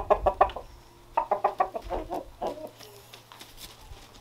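A rooster clucking excitedly in two quick runs of short notes, the second starting about a second in.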